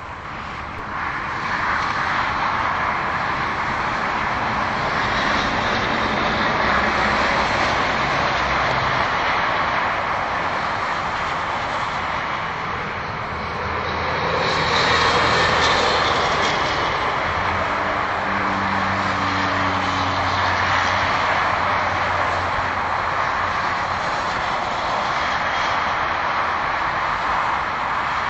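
Highway traffic: a steady rush of tyre and engine noise from cars going by at speed, swelling about halfway through as a louder vehicle passes, with a low engine hum underneath for a while after.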